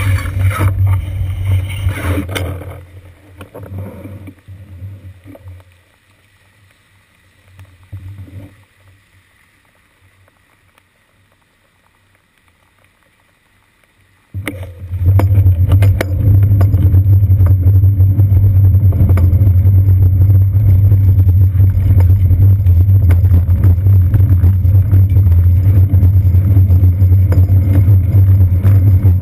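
Steady low rumble and rush of road vibration and wind picked up by a bicycle's seat-post-mounted GoPro while riding on a wet street. It dies away to very quiet a few seconds in, then comes back suddenly about halfway through and stays steady.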